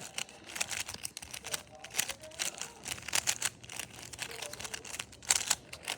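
GAN 356 M magnetic speedcube being scrambled: rapid, irregular clicking and clacking of its layers as they are turned.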